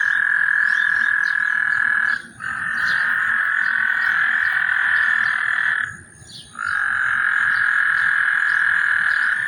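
A loud chorus of many frogs calling together in heavy rain, as a dense steady drone. The chorus falls silent for a moment about two seconds in, and again for about half a second a little past the middle, before resuming.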